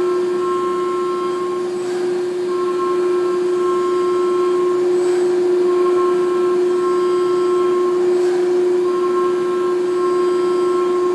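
DMG MORI DMU 105 monoBLOCK CNC milling machine running with a steady hum and a higher whine that comes and goes every second or two.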